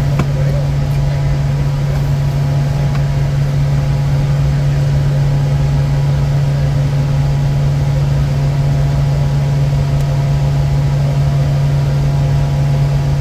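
Bombardier Challenger 350 business jet in flight: a steady, unchanging low drone of engine and airflow noise, with faint steady whines above it.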